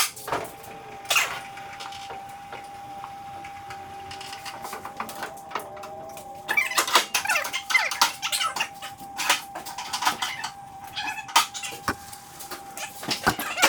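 Vehicle lift bringing the truck down off the rack: a steady whine holds through nearly the whole time, with squeaks, clicks and knocks that are busiest from about halfway through.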